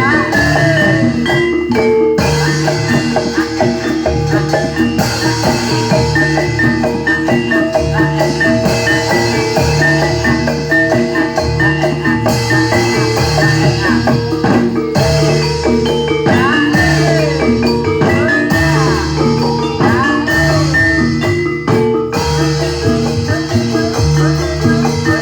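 Javanese gamelan accompaniment for a jatilan dance: mallet-struck metallophones ringing out repeating melodic notes over drums, in a steady, continuous rhythm.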